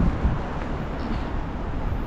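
Wind buffeting the microphone of a moving bicycle, over steady city traffic noise.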